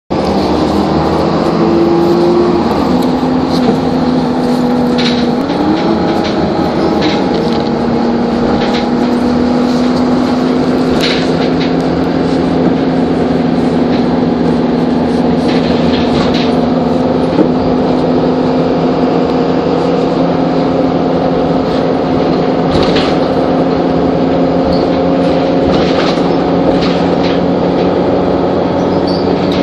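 Optare Solo single-deck bus heard from inside the passenger cabin while driving: a steady engine and drivetrain drone with a whine that climbs and drops back a couple of times in the first seven seconds as the gearbox changes up, then rises slowly. Scattered short rattles and knocks from the bus interior.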